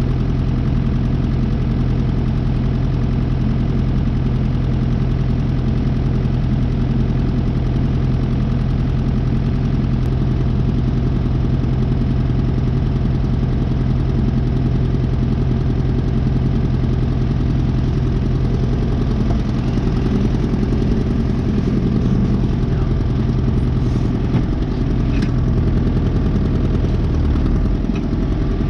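Loader tractor's engine idling steadily with an even, unchanging hum.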